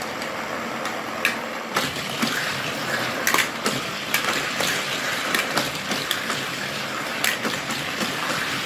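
Battery-powered motorized booster of a Mattel Cars 3 Florida 500 Speedway toy track whirring steadily, with die-cast toy cars clicking and clattering along the plastic track.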